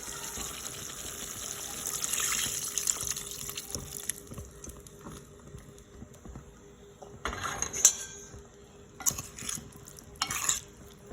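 Water running for about the first four seconds, then a few short clatters of pots and kitchen utensils.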